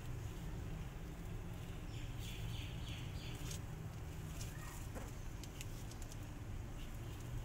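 Mother cat purring steadily while her kittens suckle, with soft clicks from their nursing and a faint high squeak about five seconds in.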